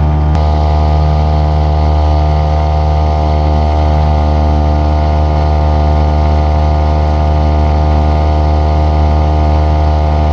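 Small 3.3-horsepower outboard motor running steadily at a constant throttle, with a single sharp click just after the start.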